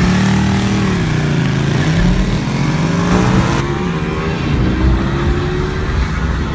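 Ducati 1199 Panigale's V-twin sport-bike engine revving hard as it launches away, the pitch climbing and dropping with each gear shift. About three and a half seconds in, the sound changes to a car engine accelerating, heard from inside the cabin, with its pitch rising steadily.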